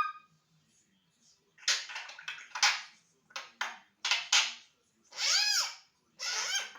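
African grey parrot making a run of short, harsh, raspy sounds with uneven gaps, some coming in quick pairs; the last two sounds are longer.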